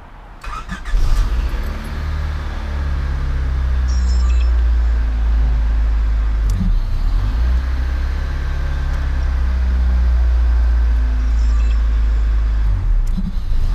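Honda Del Sol's four-cylinder engine starting about a second in and running at idle, with two brief dips, about halfway through and near the end. It runs on a freshly cleaned ignition switch that now holds the engine running instead of letting it die when the key is released.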